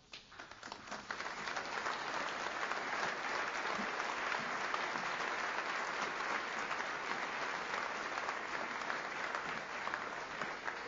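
Audience applause in a theatre: many people clapping together, swelling over the first second, then holding steady.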